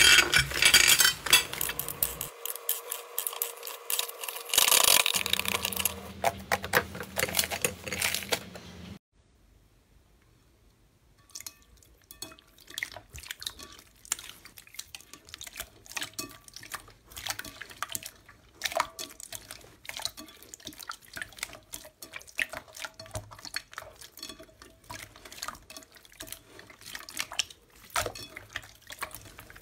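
Slime being handled, squeezed and poked, giving wet crackling and popping clicks. A louder stretch of dense crackling gives way, after a short silent break about nine seconds in, to quieter, scattered sticky pops and clicks.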